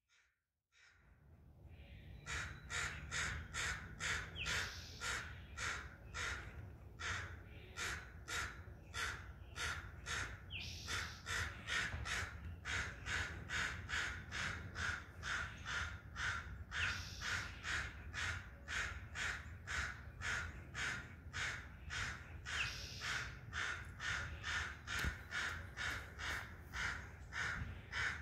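A bird giving harsh calls over and over, about three a second, over a low steady rumble.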